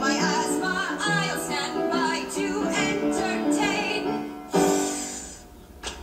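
Musical-theatre singing with instrumental accompaniment, the sung lines wavering in pitch. About four and a half seconds in, a sudden loud crash-like hit ends the song and fades out over about a second.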